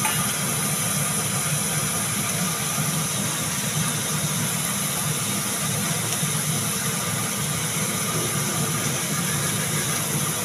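A steady low hum with a high hiss, as from a small motor running.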